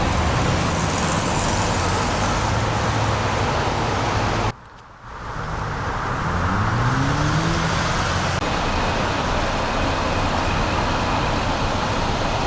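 Road traffic and a vehicle engine running steadily. About four and a half seconds in the sound cuts off briefly, then returns with an engine speeding up, its pitch rising for a second or two before settling into steady running.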